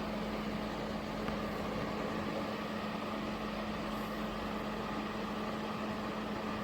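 Pro Breeze 2000W mini ceramic fan heater running steadily: an even rush of blown air over a steady low motor hum.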